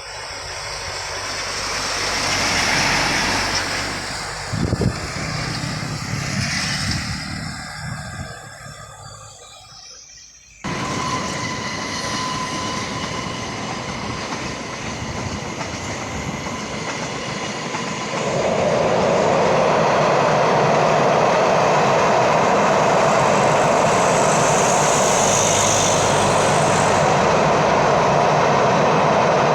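A train passing: its running noise swells and fades away, then after an abrupt cut a train is heard running steadily, growing louder about two-thirds of the way through and staying loud.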